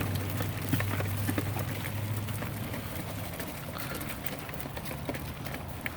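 Live crawfish being cleaned and purged: scattered clicks and clatter of shells over a steady low hum.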